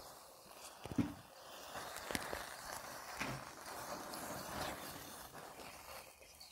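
A cube of matchsticks burning: a soft, steady hiss of flame with scattered small crackles and pops, the sharpest about a second in and again just after two seconds.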